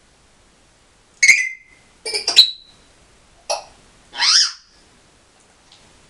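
African grey parrot calling: four short, loud, sharp whistled calls and squawks with pauses between, the second a quick double call and the last the longest.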